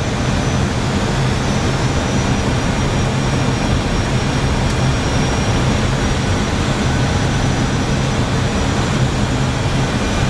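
Steady flight-deck noise of an Airbus A319-112 descending on approach: an even rushing noise over a low hum, with a thin steady high-pitched tone.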